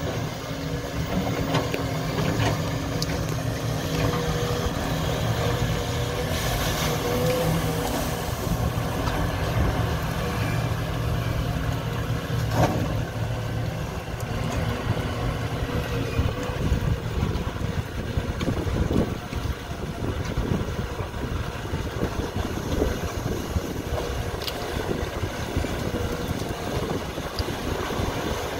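Heavy diesel engine running steadily, with a higher whine that holds from about four to nine seconds in.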